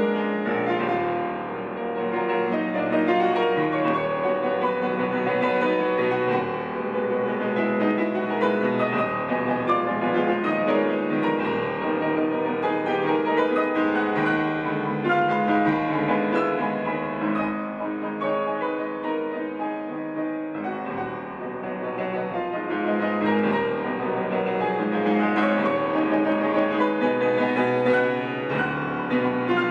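Grand piano played solo: a dense, fast classical virtuoso passage of many notes and chords, with a few brief dips in loudness.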